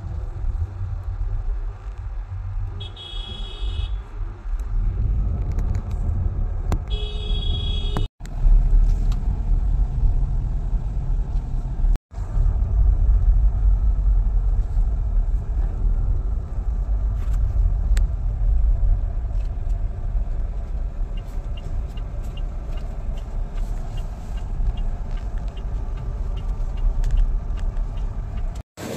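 Low, steady engine and road rumble inside a moving car's cabin, with two short high-pitched tones a few seconds apart early on.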